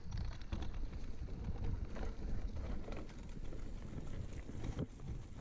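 Mountain bike riding down rough, stony singletrack: a steady low rumble of tyres and wind on the bike-mounted microphone, with the bike rattling and clicking over stones throughout.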